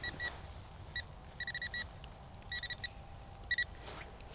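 GP Pointer metal-detecting pinpointer beeping in short bursts of quick, same-pitch beeps as it is swept over a metal target in the soil, homing in on the find.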